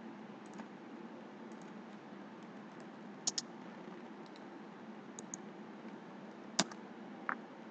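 A few scattered sharp clicks from a computer keyboard and mouse, some in quick pairs, over a steady low microphone hiss.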